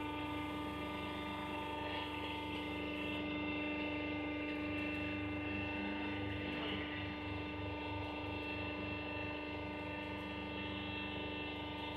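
Scrap-metal and can press machine's motor running with a steady hum and a fixed whining tone.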